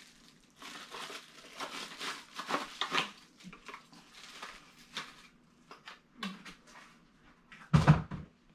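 Packaged goods being handled: rustling and crinkling of packaging with scattered light knocks, then one loud thump near the end as something is set down.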